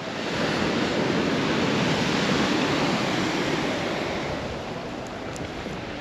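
Sea surf washing ashore: a steady rushing that eases a little past the middle and swells again near the end.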